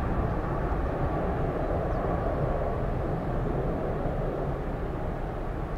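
Low, steady jet noise from a Boeing 747-400F freighter's four engines at takeoff power as it climbs away, slowly fading.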